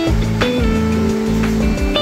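Background music: a guitar-led song with held notes over a bass line.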